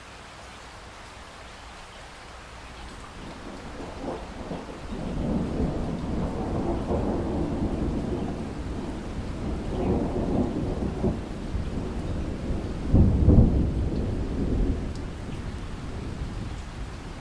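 Steady rain with a long rolling rumble of thunder that builds a few seconds in, swells several times, is loudest about three-quarters of the way through, then fades.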